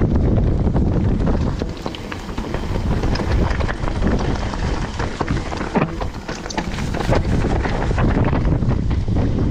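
Wind rushing over the microphone as a mountain bike rolls fast down a dirt trail, with its tyres running over the ground and frequent small knocks and rattles from the bike over bumps.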